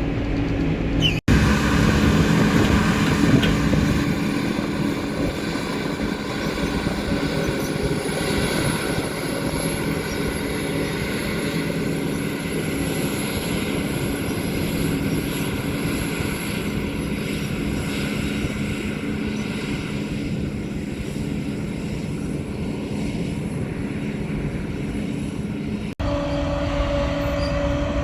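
Heavy farm machinery running steadily at harvest: a diesel engine drone with a faint high whine. The sound drops out for an instant about a second in and again near the end.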